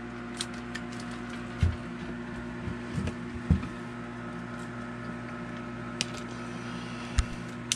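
Small electric pump of a battery watering system running with a steady hum. A few short clicks and knocks come from the hose's plastic quick-connect coupling being handled.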